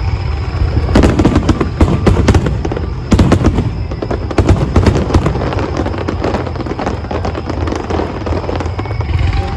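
Fireworks going off, with clusters of rapid crackling bursts about one, two and three seconds in, then thinner crackle over a steady low rumble.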